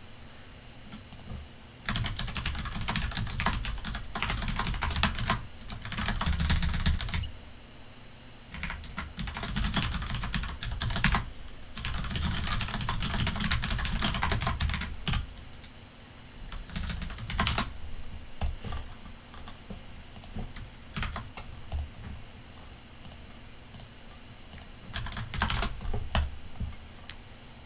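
Typing on a computer keyboard: fast runs of keystrokes broken by short pauses, thinning out to scattered key presses in the second half.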